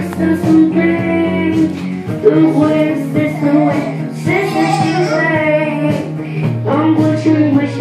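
A young boy singing a song into a handheld microphone over recorded instrumental backing music.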